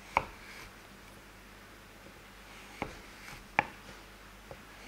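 Chef's knife chopping a bar of compound chocolate on a wooden cutting board: three sharp knocks as the blade cuts through the chocolate and meets the board, one at the start and two close together past the middle.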